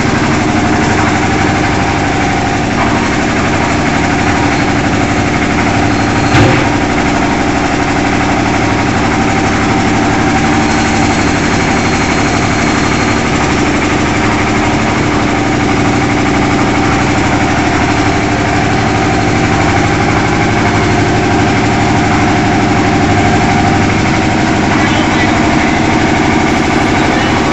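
15 HP water-cooled engine of a concrete lift mixer machine, running steadily at an even speed, with one sharp knock about six seconds in.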